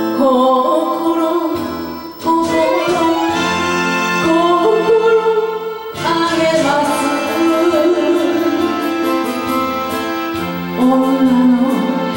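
Enka music from a karaoke backing track, a melody line held with wavering vibrato over the accompaniment.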